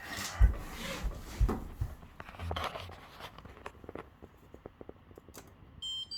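Several thumps and rustling of handling, then scattered light clicks, and near the end a short electronic beep from a Whirlpool dishwasher's control panel.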